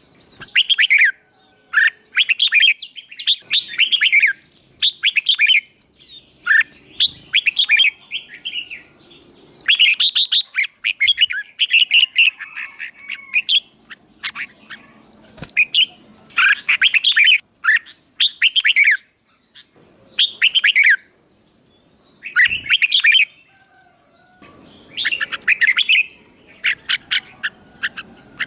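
A songbird being trained for singing competition sings in short, loud, rapid phrases of high notes, about a second each, with brief pauses between, driven to sing in excitement.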